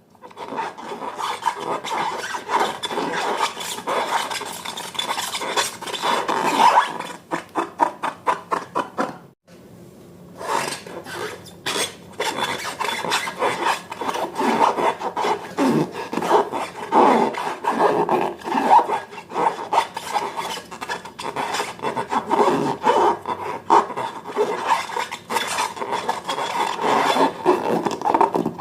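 Slime being mixed and worked by hand or with a utensil: a continuous run of rapid scraping, rubbing strokes, with a short pause about nine seconds in.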